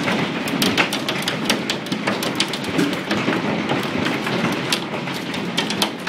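Large hailstones pelting down in a heavy hailstorm: a steady rushing noise with a dense clatter of sharp hits on hard surfaces.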